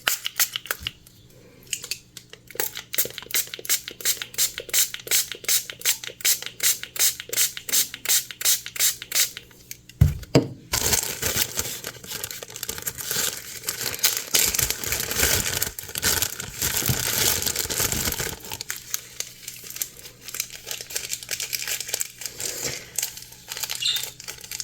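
Quick rhythmic scraping, about five strokes a second, for several seconds. Then, about ten seconds in, a loud stretch of crinkling and rustling, like plastic being handled, which thins to scattered rustles near the end.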